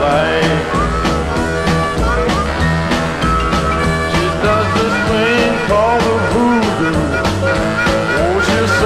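Rock-and-roll background music with drums, bass and a steady beat.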